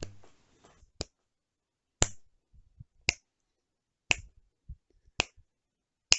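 A sharp, regular ticking, about one tick a second, seven ticks in all.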